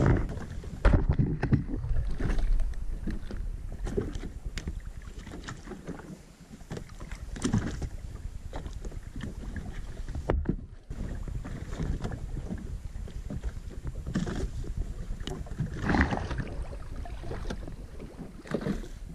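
Wind buffeting the microphone and water slapping against the hull of a small drifting boat, with scattered knocks and clicks throughout.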